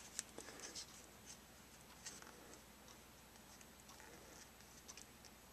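Near silence: low room tone with a few faint, light clicks scattered through it.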